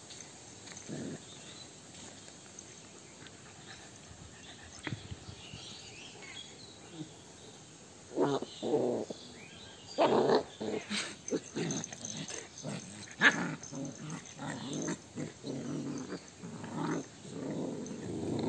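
Two puppies play-fighting, growling and yapping in short, irregular bursts that start about eight seconds in and come thick and fast from then on.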